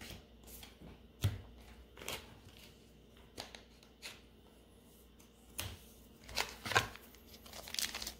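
Trading cards handled by hand: scattered soft taps and flicks of cards, the sharpest about a second in, with a quicker cluster of card handling near the end.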